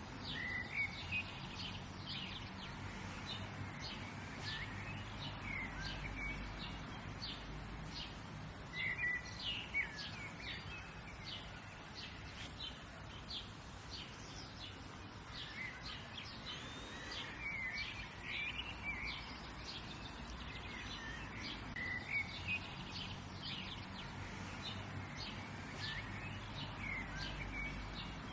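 Several wild birds chirping and calling together, short quick notes overlapping throughout, over a faint steady low rumble.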